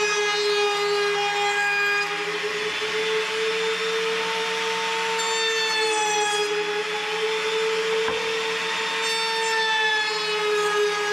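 Table-mounted wood router running at high speed, a steady high whine with a hissing cutting noise as an oak board is fed along the fence past the bit. The whine sags slightly in pitch now and then as the bit takes load.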